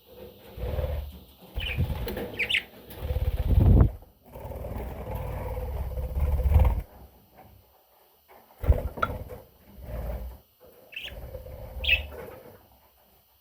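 Budgerigar giving a few short high chirps over several bursts of low wing-flapping rustle.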